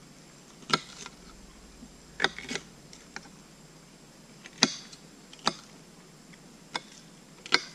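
Knife slicing a green bell pepper into strips on a plate, each cut ending in a sharp tap of the blade on the plate, about once a second and unevenly spaced.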